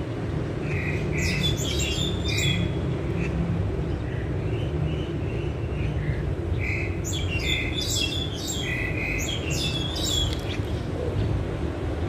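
Loud, harsh chattering calls of a myna (the jalak Hongkong), in two bouts: one about a second in, and a longer one from about seven to ten seconds. A steady low rumble runs underneath.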